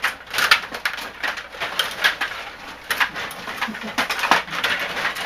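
Hockey video game sound effects: a run of short clacks and scrapes, one or two a second, like sticks, puck and skates on ice.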